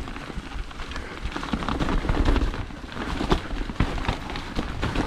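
Full-suspension mountain bike riding down a wet, muddy trail: tyres running through mud and debris, with many quick clicks and rattles from the bike over a steady low rumble.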